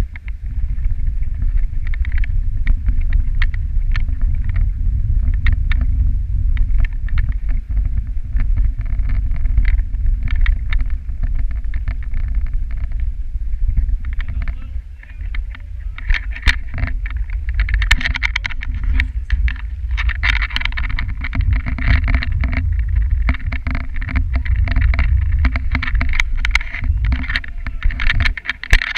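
Dog sled sliding fast over packed snow: a steady low rumble of the runners and wind on the microphone, with frequent knocks and rattles as the sled goes over bumps, growing noisier about halfway through.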